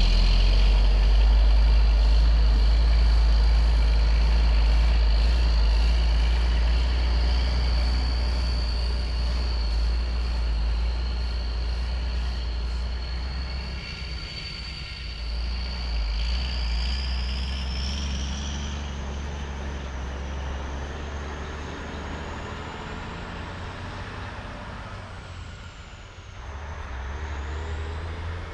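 Heavy diesel vehicle engine running with a high whine above it, growing gradually quieter as it moves away.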